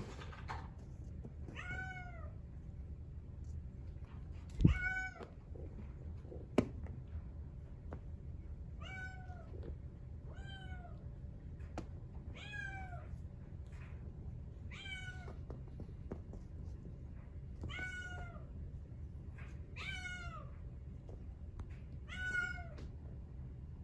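Exotic Shorthair kitten meowing repeatedly: about ten short, high meows, each rising and falling in pitch, every second or two. Two sharp thumps come about four and a half and six and a half seconds in.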